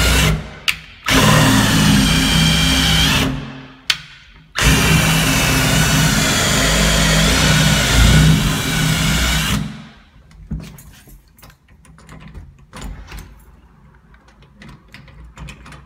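Power drill spinning an Easy Out screw-extractor bit in a stripped screw, run in three bursts: a brief one, one of about two seconds, then a longer one of about five seconds that stops near the middle, followed by small clicks and handling. The extractor isn't grabbing; it only drives the screw in further.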